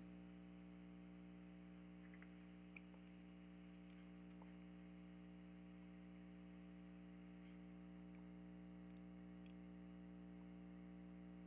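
Near silence: a steady low electrical hum with a handful of faint, scattered clicks from a computer's pointing device being clicked while drawing.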